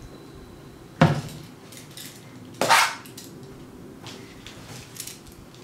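Plastic paint bottle and small toy train handled on a tabletop: a sharp knock about a second in, then a longer clattering scrape a second and a half later, followed by a few faint taps.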